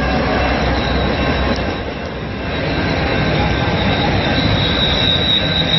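Freight train rolling past, a steady rumble of wheels on rail, with a high wheel squeal that grows louder in the last couple of seconds.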